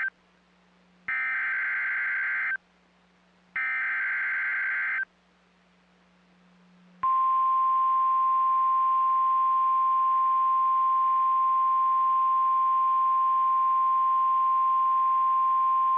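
NOAA Weather Radio Emergency Alert System signal: two bursts of SAME digital header data, each a harsh buzzing chirp about a second and a half long with a short pause between them, then about seven seconds in the steady single-pitch 1050 Hz warning alarm tone starts and holds. Together they announce a new warning broadcast, here a severe thunderstorm warning.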